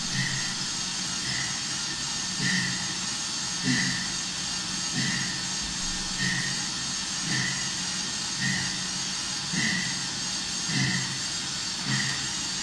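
Bike on an indoor trainer under hard pedalling: a steady whir from the rear tyre and resistance unit. Over it, heavy rhythmic breathing through a gas-analysis face mask comes about once every 1.2 seconds, the hard breathing of a maximal exercise test.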